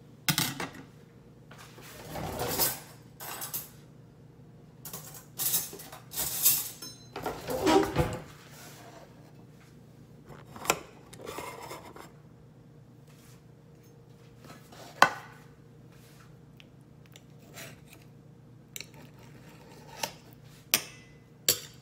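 A metal slotted spatula scraping and clinking against a glass baking dish in several bursts as enchiladas are lifted out. Later come single sharp clicks, then a quick run of knife-and-fork clicks on a ceramic plate near the end.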